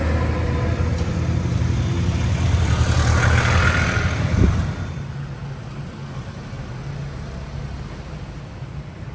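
Motor vehicle engine and road noise heard while travelling, with a steady low engine hum and a rising hiss that peaks about three and a half seconds in. A single knock comes about four and a half seconds in, after which the engine sound drops and stays quieter.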